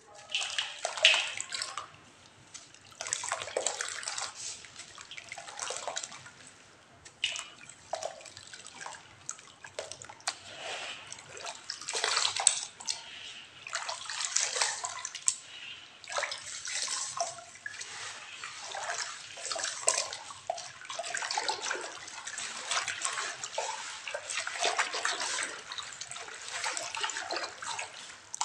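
Water sloshing and splashing in irregular bursts as cowrie shells and clay toys are stirred and mixed in it, with sharp clicks among the splashes.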